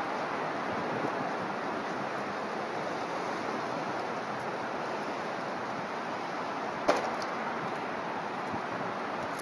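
Steady outdoor wind noise with one sharp knock about seven seconds in.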